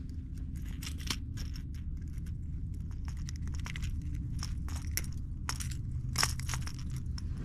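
Scattered small clicks and taps, irregular and unevenly spaced, over a steady low rumble.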